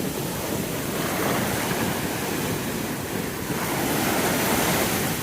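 Rough sea surf washing in and breaking, a steady rushing that swells and eases, with wind buffeting the phone's microphone.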